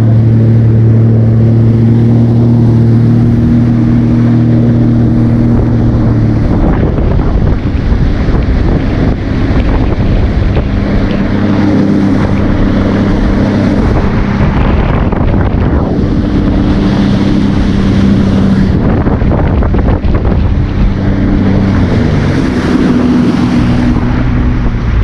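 Jet ski engine running steadily under way. About six seconds in, heavy wind buffeting on the microphone and the rush of water swamp it. The engine note comes through again from about ten seconds in, at a slightly different pitch.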